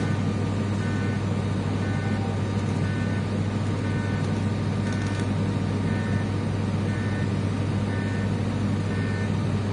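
Automatic TIG welding of metal hose fittings: a steady electrical hum runs throughout, with a faint higher tone that comes and goes about once a second.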